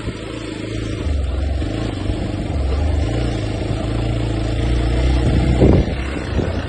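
Hero Xpulse 200 4V motorcycle's single-cylinder engine running as it is ridden, its pitch and level rising and falling. A loud thump about five and a half seconds in.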